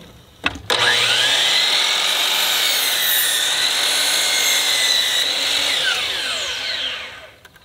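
A DeWalt 12-inch sliding compound miter saw with a new Diablo 44-tooth blade clicks and spins up with a rising whine. It crosscuts a 2x10 board at full speed, then winds down with a falling whine over the last couple of seconds.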